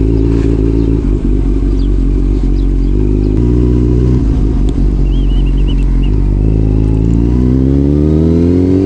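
Motorcycle engine running under way, picked up by a microphone inside the rider's helmet. Its note holds fairly steady at first, then from about six and a half seconds it rises steadily as the bike accelerates.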